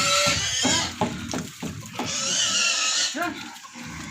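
Pigs squealing in two shrill bursts, one at the start and one about two seconds in, with grunting and a few knocks between them.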